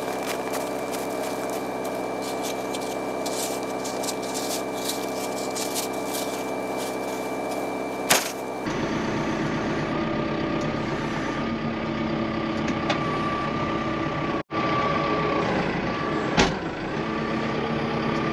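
A farm vehicle's engine running steadily while round hay bales are being put out. The sound changes abruptly about eight and a half seconds in, and there are a couple of sharp knocks.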